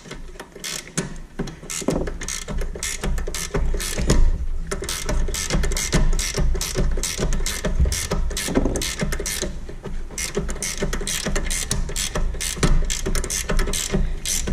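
Ratcheting wrench clicking in a quick, uneven run of several clicks a second as it spins out a caliper bracket bolt that has already been broken loose.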